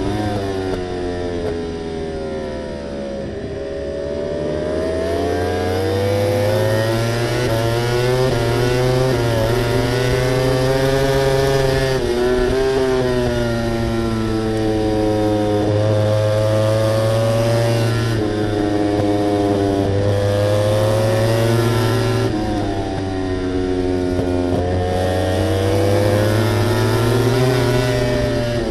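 KTM RC16 MotoGP bike's V4 racing engine at high revs, its pitch rising as it accelerates and dropping as it slows for corners, several times over.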